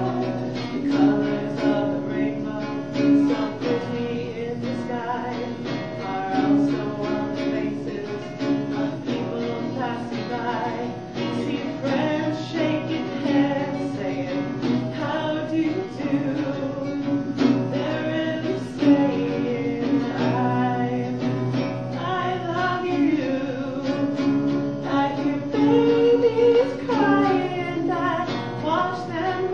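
Singing accompanied by acoustic guitar: a song played through.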